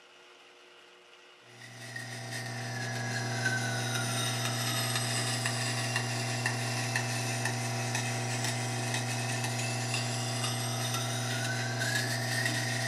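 Bench sharpening grinder with a large stone wheel starting up about a second and a half in and running with a steady hum, as a chef's knife blade is ground on the stone. Light regular ticks, and a ringing tone that falls and then rises again near the end.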